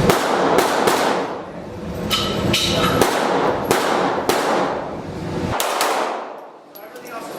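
A string of gunshots, about eight to ten, fired roughly one every half second to a second with a pause near the middle, each echoing away after the crack.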